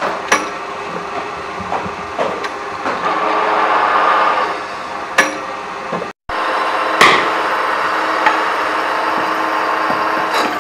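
Pillar drill press running and drilling into a finned cast-metal pump motor housing. The cutting noise swells for a couple of seconds as the bit bites, with a few sharp metallic knocks as the housing is handled. The sound cuts out briefly about six seconds in.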